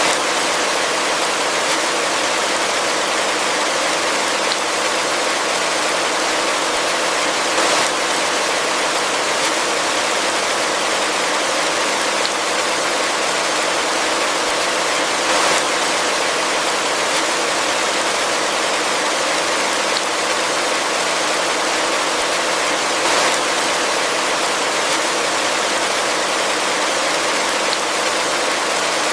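Heavy rain falling steadily: an even, unbroken hiss, with a few brief slightly louder moments.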